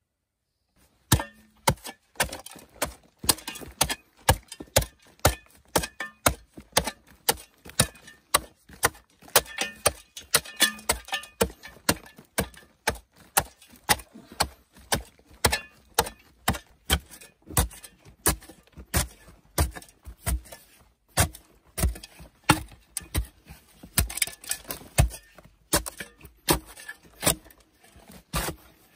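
A hand tool striking again and again, about two to three sharp blows a second, starting about a second in and keeping up without a pause.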